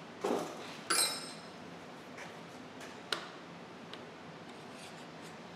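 Metal tools and a drill being handled against an engine block: a dull knock, then a sharp metallic clink that rings briefly about a second in, followed by a few lighter clicks.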